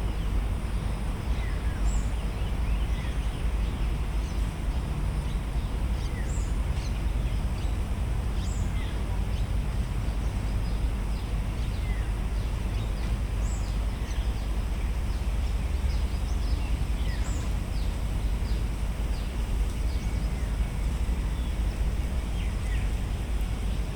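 Birds giving short, faint, high chirps every second or two over a steady low rumble.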